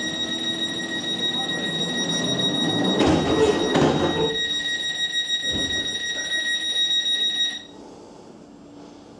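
Class 484 train's sliding passenger doors closing, with two loud clattering strikes about three to four seconds in, over a steady high-pitched electronic tone that cuts off suddenly about three-quarters of the way through.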